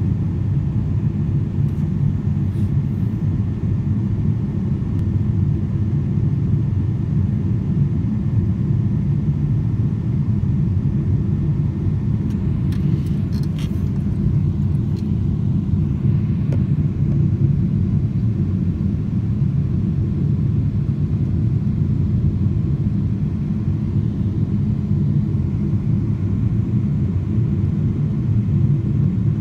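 Steady low rumble of a jet airliner heard inside the passenger cabin as it taxies slowly, engine and rolling noise at an even level throughout.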